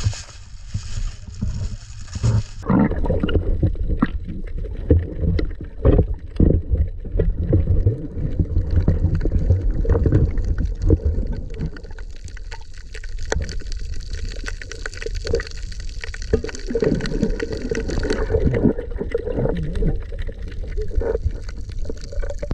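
Water splashing at the surface, which stops abruptly about two and a half seconds in. After that comes the muffled gurgling and knocking of water heard with the microphone underwater.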